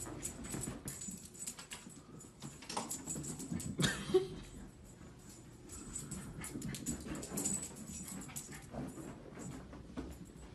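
Small dog scrambling and running about on carpet: a scatter of light, quick scuffles and taps, with a short whimper about four seconds in.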